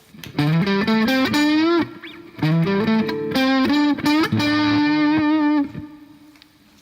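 Electric guitar played through a Boss Blues Driver BD-2 overdrive pedal, mildly overdriven, in a short lead phrase with string bends. The phrase ends on a held, bent note that rings and fades out.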